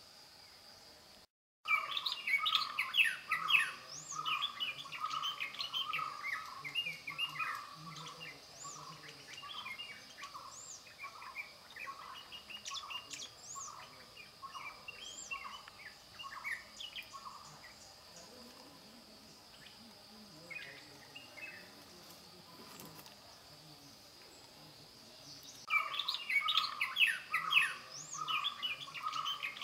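Birds chirping, many short quick calls that start abruptly about a second and a half in, thin out through the middle and grow busy again near the end, over a faint steady high tone.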